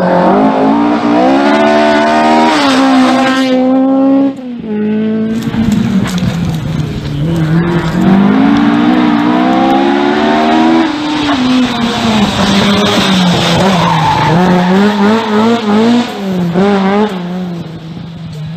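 Ford Escort RS1600 rally car's four-cylinder engine revving hard, its pitch climbing and falling several times as it accelerates and lifts through corners.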